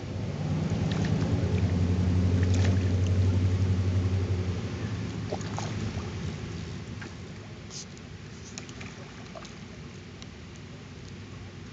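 A low engine hum that swells over the first second, stays loud for a few seconds, then fades away after about four and a half seconds, like a motor passing by, with a few faint clicks.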